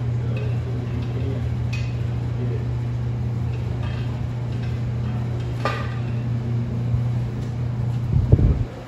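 Steady low hum with a few light metal clinks as parts are handled and fitted at the front of a small-block Ford engine on its stand, and a low thump near the end.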